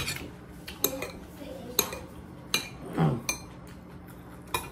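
Metal fork and spoon clinking against a ceramic dinner plate while eating, about six separate sharp clinks spread over a few seconds.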